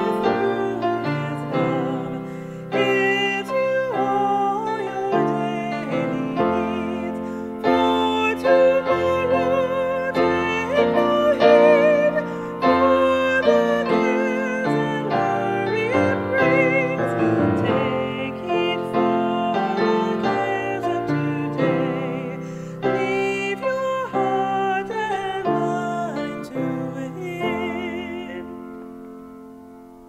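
A woman singing a hymn solo with vibrato, accompanied by piano. The last chord dies away near the end.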